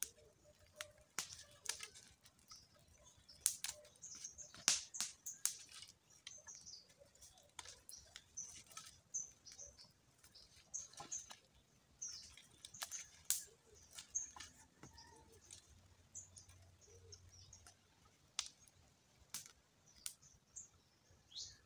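Wooden sticks knocking and clacking together at irregular intervals as they are handled and laid on a stick rack, with birds chirping.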